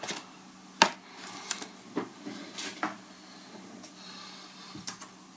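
A few scattered sharp clicks and taps of small parts and a cardboard kit box being handled on a wooden desk. The loudest comes about a second in, with lighter ones following over a faint room hiss.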